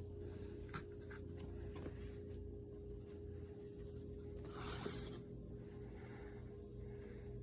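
A steady low hum with a few faint clicks in the first two seconds. A little past the middle comes a brief rustling or scraping noise, the loudest sound here.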